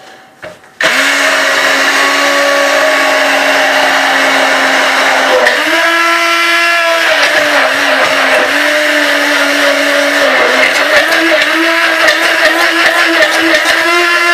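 Electric blender switched on less than a second in and running steadily, blending egg, mustard, salt and vinegar into mayonnaise as oil is added a little at a time. The motor's hum steps up in pitch about halfway through and wavers as the mixture thickens.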